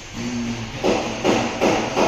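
Music with a regular beat, strikes coming about two and a half times a second from about a second in.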